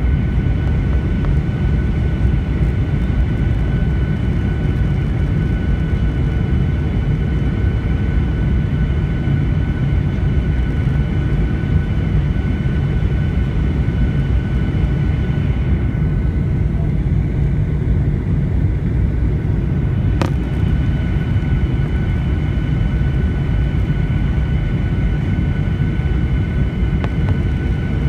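Inside the cabin of a Boeing 737-800 on final approach: a steady rumble of its CFM56 jet engines and airflow, with a steady high engine whine over it. A single sharp click about twenty seconds in.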